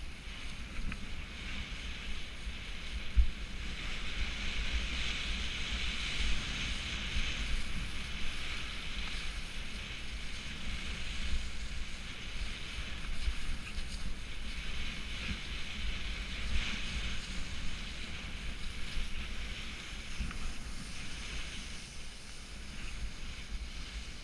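Skis sliding and turning through wet, heavy spring slush: a steady hiss that swells and fades. Wind buffets the microphone as a low rumble.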